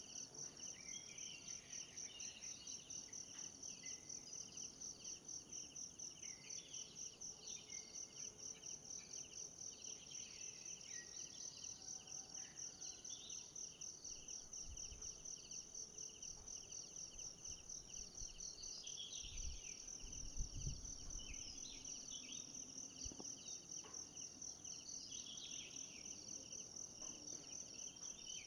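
Forest insect chorus: a steady, evenly pulsing high trill, with scattered short bird chirps over it. A few low thumps come about two-thirds of the way through.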